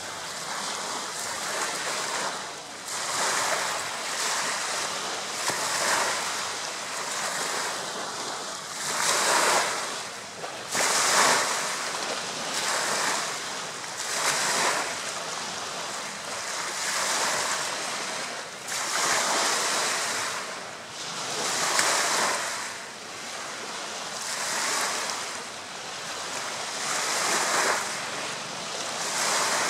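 Small lake waves washing onto a pebbly shore, the hiss swelling and falling back every two to three seconds.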